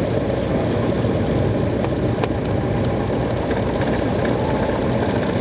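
Single-engine light aircraft's piston engine and propeller running steadily, heard from inside the cockpit.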